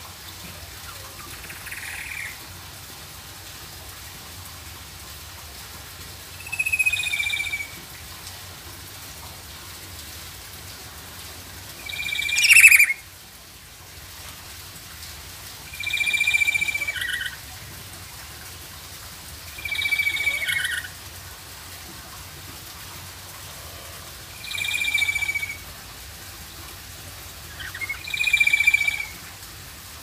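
Black-capped lory calling: seven short calls of about a second each, one every four seconds or so, the loudest about halfway through.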